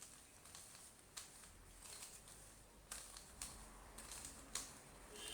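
A Rubik's cube being twisted quickly by hand: faint, irregular plastic clicks and scrapes as the layers turn.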